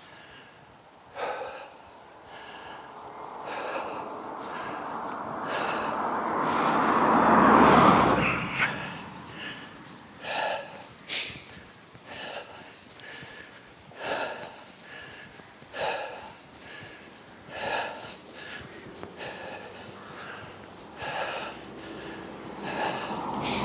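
A cyclist breathing hard while climbing a steep hill: heavy breaths every second or two. A rush of noise swells and fades, loudest about eight seconds in.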